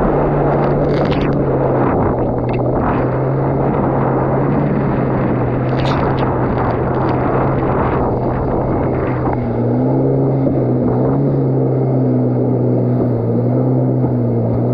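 Yamaha GP1800R SVHO WaveRunner's supercharged four-stroke engine running at a steady cruising speed under heavy water and wind rush. A few brief sharp slaps of water against the hull come through.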